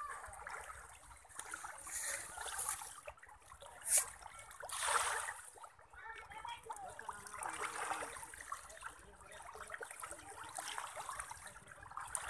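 A mass of tilapia splashing at the water surface as they feed, making a constant irregular patter of small splashes. A sharper, louder splash comes about four seconds in, followed by a broader swell of splashing.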